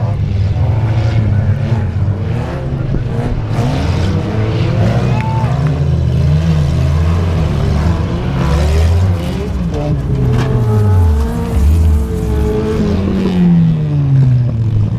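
Engines of several old road cars in a wreck race on a dirt track, running hard and overlapping, their pitches repeatedly rising and falling as they accelerate, corner and pass.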